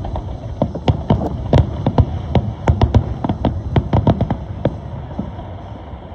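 Fireworks going off in a rapid, irregular string of sharp bangs, around twenty in four seconds, which dies away about four and a half seconds in.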